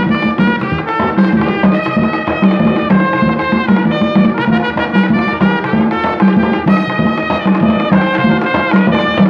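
Live Haitian folk band music: tall hand drums keep a steady, driving beat under brass horns playing the melody.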